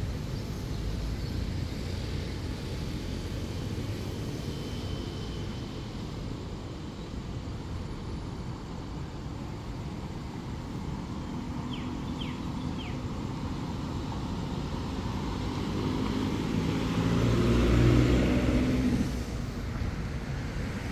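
Steady low rumble of motor vehicle engines, swelling as a vehicle passes about three-quarters of the way through, then easing off. A few faint short chirps about halfway.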